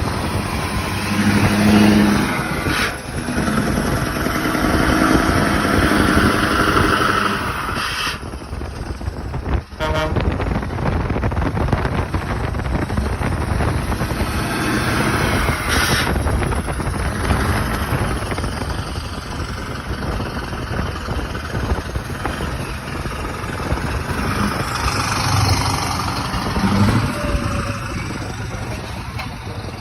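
Scania V8 truck engine rumbling loudly as the truck drives, its note rising and falling over the stretch, with a brief dip about ten seconds in.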